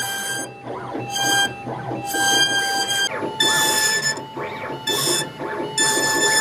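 CNC router carving a relief pattern into a wood panel: the spindle gives a steady high whine, and louder whining bursts come and go every second or so as the cutting head moves. The whine steps slightly higher about three seconds in.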